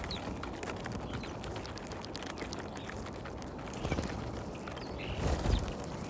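European starlings pecking at seed on snow: many light, irregular taps and clicks of bills at the food, with a few short calls, one of them about five seconds in.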